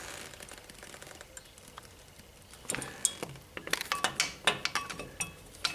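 Large flathead screwdriver levering against the brake pad and caliper to push the piston back into its bore, making room for thicker new pads: irregular metallic clicks, scrapes and short squeaks, starting about halfway in.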